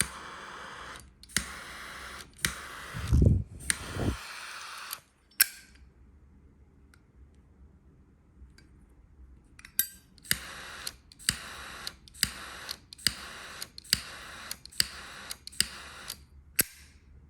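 Double-jet butane torch insert for a Zippo being lit by its flint wheel: a steady jet hiss broken by sharp clicks, going quiet for a few seconds midway. Then it is relit again and again, short hisses each starting with a click, about twice a second.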